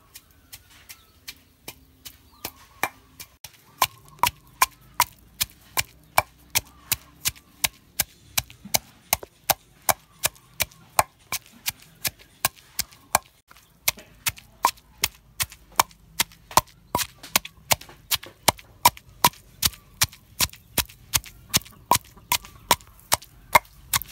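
Wooden pestle pounding chillies in a stone mortar: a steady run of sharp knocks, about two to three a second, softer and sparser for the first few seconds, then louder.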